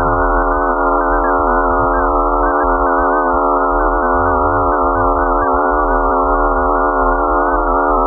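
Steady electronic space-sound drone presented as the sound of Mars's moon Phobos: a stack of held tones with wavering higher tones above and a low rumble underneath.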